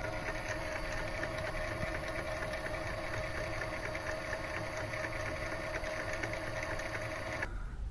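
Mini lathe running steadily, its motor and spindle gear train giving a constant mechanical hum with a held mid-pitched tone. The sound cuts off abruptly near the end.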